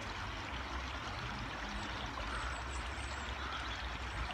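Steady rushing of running water, like a stream, with a low rumble underneath.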